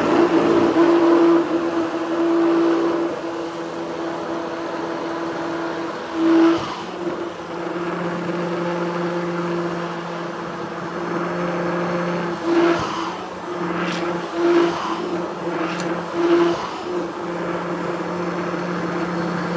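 Cordless KitchenAid hand blender running steadily as it blends mango pulp and yogurt into a lassi in a tall blending jar, with a few brief louder surges as the blade head is moved through the mixture. The motor cuts off suddenly at the very end.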